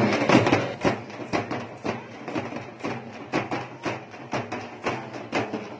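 Processional drums beating a fast, even rhythm of about three to four strikes a second, accompanying a Pothuraju dance.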